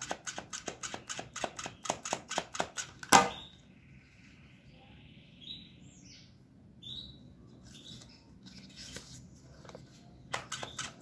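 EVA foam petal pressed in a hair flat iron and worked by hand, giving a rapid run of sharp crackling clicks that ends in one louder click about three seconds in. Quieter rubbing of the foam follows with a few faint squeaks, and the clicking starts again near the end.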